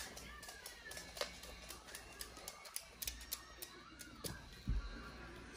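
A large dog moving about and nosing into a towel: scattered small clicks and taps, irregular and a few a second.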